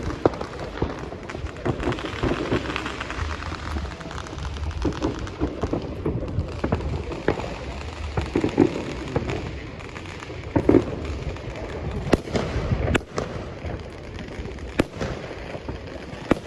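Fireworks going off: sharp bangs and crackles at irregular intervals, the loudest in the second half.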